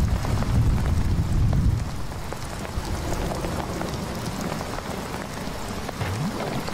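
Heavy rain falling on broad leaves, with many separate drop hits. A low rumble of thunder under the rain in the first two seconds dies away.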